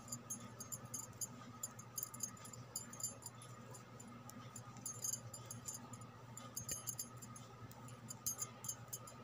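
Knitting needles clicking and tapping together in quick, irregular strokes as stitches are worked, over a faint steady hum.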